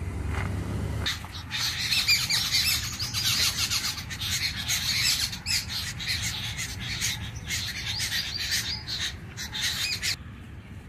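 Birds in the trees squawking and chattering, many harsh calls overlapping one another; the chorus starts about a second in, after a low rumble, and cuts off suddenly near the end.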